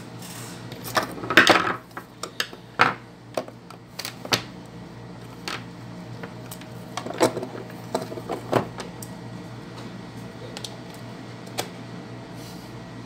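Irregular clicks and light knocks of plastic lamp parts being handled on a table, with a cluster about a second in and another around seven to eight seconds in, over a low steady hum.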